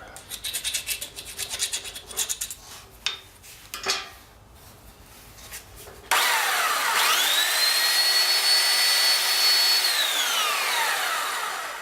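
A small round file rasping in quick strokes on the freshly sharpened end of a galvanized pipe, taking out the burrs. About six seconds in, a power sander starts: its whine rises, runs steady and loud, then drops as it winds down near the end.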